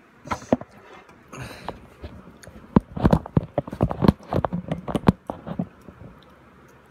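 Handling noise from a phone held close to its microphone: irregular knocks, taps and rubbing as it is moved and propped up, with a short rustle about a second and a half in.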